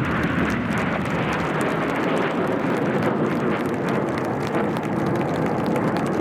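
Roar of BAE Hawk T1 jets' turbofan engines as the formation passes and moves away, a steady rushing noise that follows a falling whine just before.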